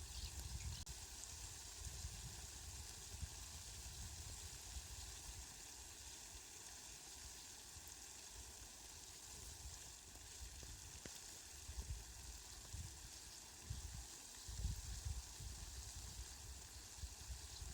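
Rain falling steadily, a faint even hiss, with low rumbles coming and going underneath.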